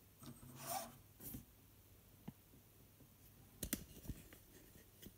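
Faint handling noise from a hobby-grade RC car chassis and its transmitter: a short rub or scrape in the first second and a half, then a few light clicks and knocks.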